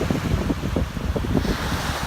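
Wind buffeting the microphone in low, gusty rumbles over the hiss of ocean surf, the surf washing up a little louder about a second in.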